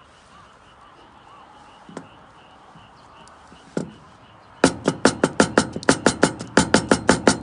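A knife chopping quickly and evenly on a board, about five strokes a second, starting about four and a half seconds in. Before that, a faint outdoor background with a single click and a knock.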